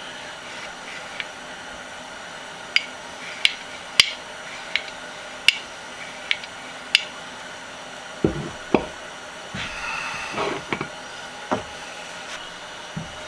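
Metal parts of a machinist vise being handled and fitted together during reassembly: about seven sharp, separate clinks over a few seconds, then a few duller knocks.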